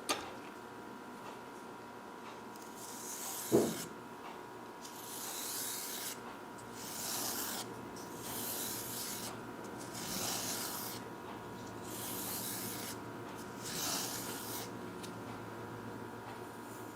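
Slow, repeated hand rubbing strokes on the pocket knife, about seven of them, each lasting around a second. A single sharp knock comes about three and a half seconds in.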